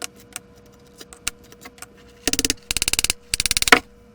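A few light clicks, then about two seconds in three quick runs of rapid, evenly spaced clicking, like a ratcheting hand tool being worked back and forth.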